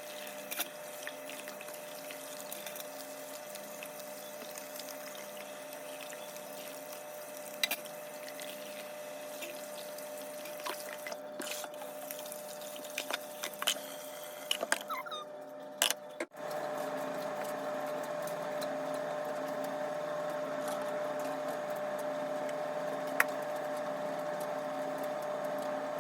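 Tap water running steadily while a removed washing-machine part is rinsed and scrubbed, with small knocks and clicks as it is handled. There is a brief break about 16 seconds in, after which the water runs a little louder.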